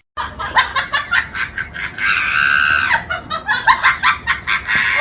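A person laughing hard in rapid bursts, breaking into a long high-pitched scream about two seconds in, then laughing on.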